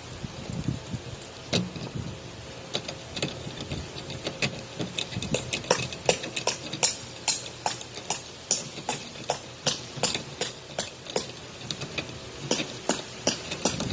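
Toolbox lock being worked with lock-picking tools: a run of sharp, irregular metal clicks, sparse at first and coming two or three a second from about five seconds in.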